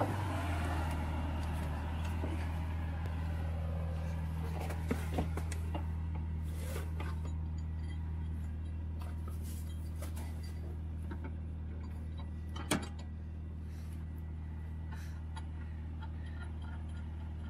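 A vehicle engine idling with a steady low hum, easing a little after the first second. A few light clicks, and one sharp knock about thirteen seconds in.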